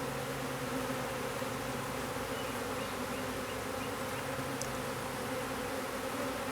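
Swarm of honeybees buzzing in the air, a steady hum of many wings with several pitches layered together, made by bees flying around while the swarm is being hived.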